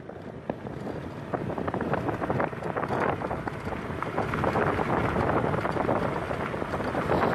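Wind buffeting the microphone over a motorbike engine running while riding along a dirt road.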